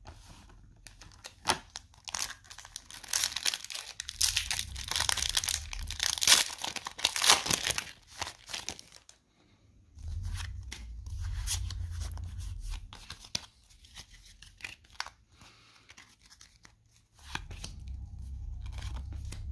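Foil Pokémon booster pack wrapper being torn open and crinkled, a dense crackling rustle that is loudest in the first half, followed by sparser crinkles and clicks as the wrapper and cards are handled.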